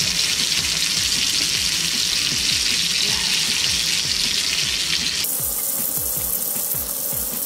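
Background music with a steady low beat over a continuous hiss; the hiss changes abruptly about five seconds in.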